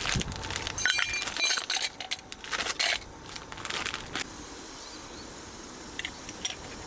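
Clinks and rattles of small hard objects being handled, with one brief ringing clink about a second in, for roughly the first three seconds; then a couple of faint ticks near the end.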